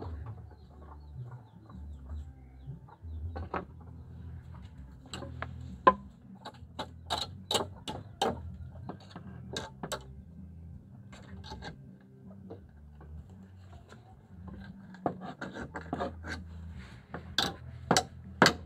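Chickens clucking, with bursts of sharp clicks and taps about five seconds in and again near the end.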